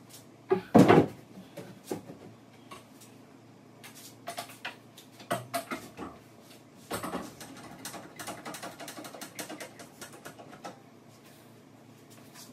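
Irregular knocks, taps and clicks of wooden cabinets and hardware being handled during installation, with one loud thump about a second in and a quicker run of clicks near the end.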